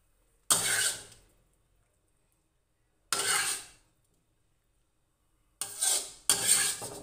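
A spatula scraping the inside of a metal wok as cooked food is scooped out, in four short scrapes: the first two a few seconds apart, the last two close together near the end.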